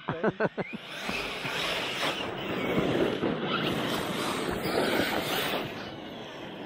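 1/8-scale 6S brushless RC trucks driving over grass: a rushing noise of tyres and drivetrain that swells about a second in and eases off near the end.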